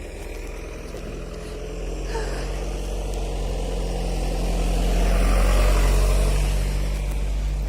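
A motor engine passing close by, growing louder to a peak about five to six seconds in and then easing off slightly.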